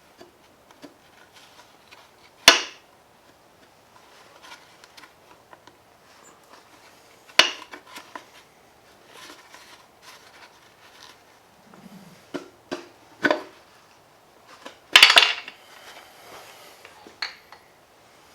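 Metal engine parts clinking and clanking as a Gen 4 Hemi's connecting rod and piston are taken out and set down: a few sharp metallic clanks, the loudest about fifteen seconds in, with quiet tool and handling ticks between them.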